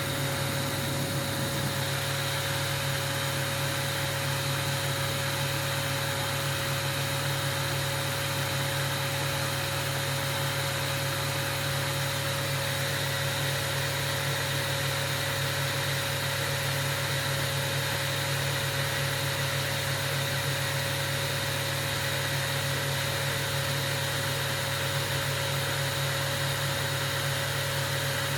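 Steady mechanical hum with one constant mid-pitched tone and a hiss over it, unchanging throughout.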